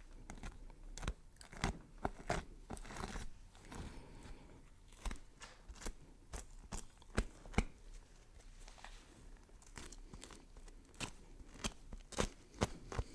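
Knife chopping vegetables on a cutting board: irregular sharp strikes, one to three a second, some much louder than others.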